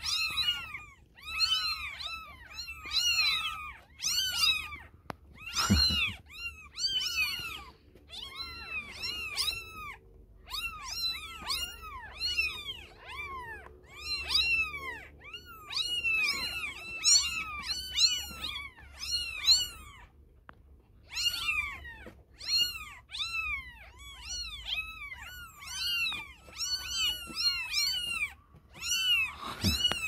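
A litter of newborn kittens mewing without pause, many short high-pitched cries from several kittens at once, overlapping. A single knock sounds about six seconds in.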